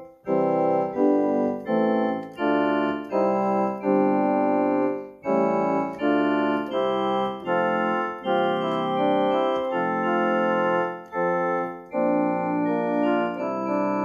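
Yamaha PSR-60 home keyboard played by hand: a slow tune in chords. The notes are held and changed about every half second, with short breaks between phrases about five and twelve seconds in.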